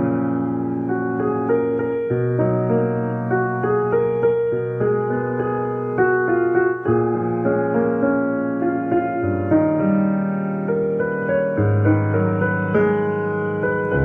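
Background instrumental music: a slow melody of held notes that change every second or two.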